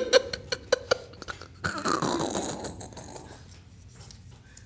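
Small folded slip of paper crinkling as it is unfolded by hand, giving a quick run of crisp clicks in the first second. About two seconds in, a man makes a drawn-out vocal sound that falls and fades.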